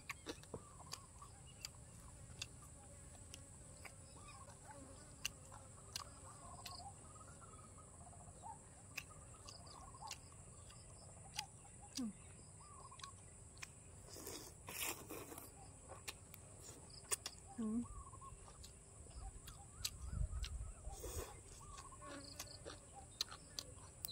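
Faint eating sounds from a person chewing crispy fried pork belly: scattered crunches and mouth clicks. Behind them are outdoor sounds of birds chirping and a steady high insect drone, with a couple of louder rustles about fifteen and twenty-one seconds in.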